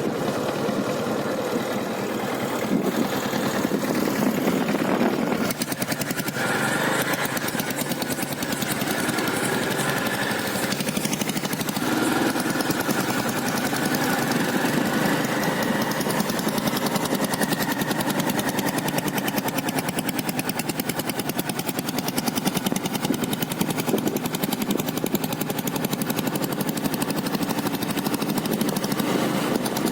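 Royal Enfield Taurus's single-cylinder diesel engine running with a rapid, steady knocking beat. Its pitch shifts a couple of times in the first half as the revs change.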